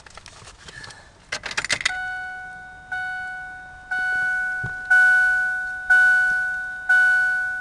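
Keys jangling as the ignition key goes in, then the 1996 Ford Explorer's warning chime sounding about once a second, each chime a clear steady tone that fades before the next.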